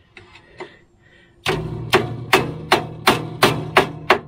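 Tool working a rusted, seized rear bump-stop bolt on a Ram ProMaster van. About a second and a half in, sharp metallic hits start, about three a second, over a steady low drone.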